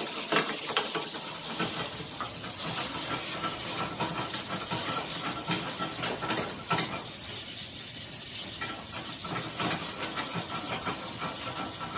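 Cubes of salmon sizzling and crackling in a hot frying pan while flames flare up out of the pan on the gas burner: a steady hiss with small crackles and spits.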